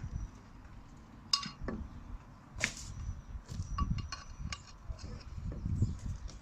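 Metal parts of a motorcycle front fork clinking and tapping as they are worked apart by hand, a few sharp clinks, some ringing briefly, with low handling noise between.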